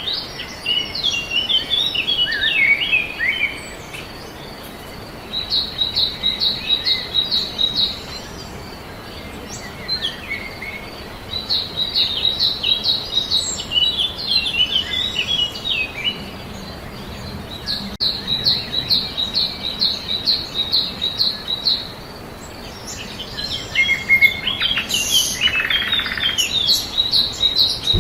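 Songbirds singing in bouts of a few seconds separated by short pauses: fast, even trills of repeated high notes alternating with warbling, falling phrases, over a steady background hiss.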